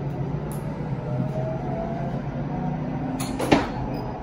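Steady low rumble and hum of a shinkansen bullet train running at speed, heard from inside the car's vestibule. A few sharp clicks and one loud knock come near the end.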